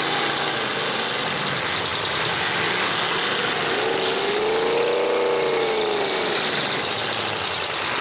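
Demolition derby cars' engines running hard together in a steady din. A little under four seconds in, one engine revs up and falls back over about three seconds.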